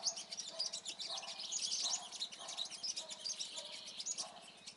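Sunbirds chirping and twittering: a steady run of rapid, high, thin notes, with a few fainter, lower short notes now and then.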